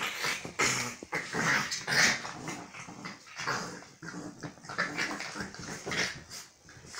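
A Staffordshire bull terrier and a boxer play-fighting, with growls in irregular bursts that are loudest in the first two seconds.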